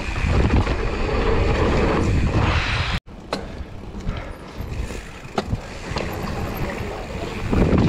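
Wind buffeting an action-camera microphone over the rolling noise of knobby tyres on a dirt trail, as a youth full-suspension mountain bike rides fast. After a sudden cut about three seconds in, it rolls more quietly with sharp clicks and knocks from the bike, and it grows loud again near the end.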